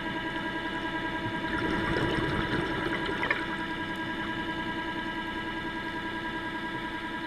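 Diver propulsion vehicle (underwater scooter) motor running steadily underwater: a constant whine with an even, pulsing hum. About a second and a half in, a gurgling rush of exhaled bubbles rises over it for about two seconds.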